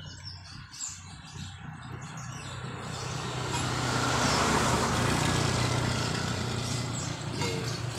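An engine running steadily, growing clearly louder from about three seconds in and staying loud.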